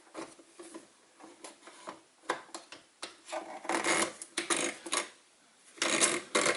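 Baratza Sette 270 coffee grinder parts scraping, rubbing and clicking in irregular bursts as the burr assembly is turned and lined up by hand.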